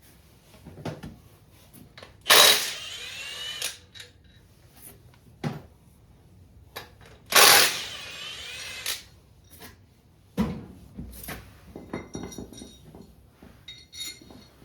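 Power tool run in two bursts of about a second and a half each, with a rising whine, backing out engine fasteners during a teardown. Short knocks and clinks of metal parts and tools come between the bursts.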